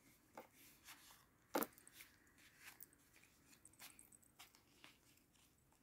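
Faint soft clicks and flicks of a deck of paper cards being shuffled by hand, with one sharper snap about a second and a half in.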